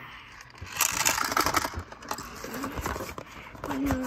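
Cardboard game box being opened and handled by hand: rustling and scraping of the cardboard, with scattered light knocks of the contents. A short hummed voice sound comes near the end.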